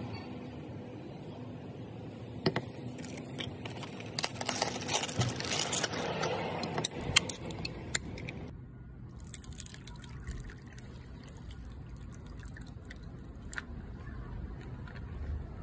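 Handling of a plastic cup of ice with a film lid: crinkling and clicking, with ice cubes clinking. Then, after a change of shot, Fanta milk soda is poured from the can over the ice, liquid splashing into the cup.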